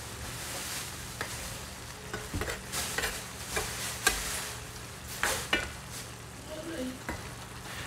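Large metal spoon stirring ground-beef giniling with diced potatoes and carrots in a frying pan, scraping and clinking against the pan several times between about two and six seconds in, over a steady frying hiss from the simmering pan.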